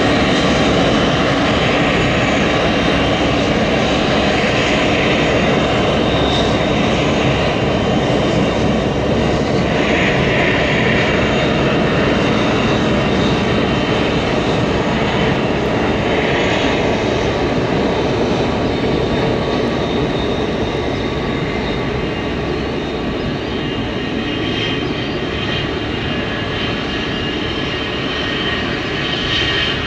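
Boeing 727-200 freighter's three Pratt & Whitney JT8D-7B turbofans running at taxi power: a steady jet engine noise.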